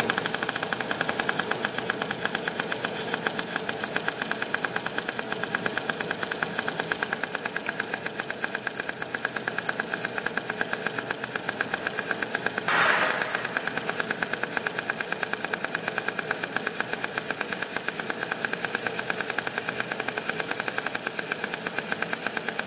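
MIG welding arc in globular transfer, the wire feed left at the short-circuit setting and the voltage raised to around 24: a steady, rapid pulsing crackle and buzz with a brief louder flare about 13 seconds in.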